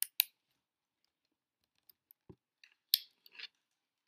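Small handling noises from a person moving close by: two sharp clicks at the start, a soft thump about two seconds in, then another sharp click and a brief rustle near three seconds.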